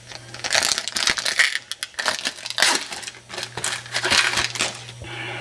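Trading card pack being opened and handled: wrapper crinkling and rustling in irregular bursts that stop near the end.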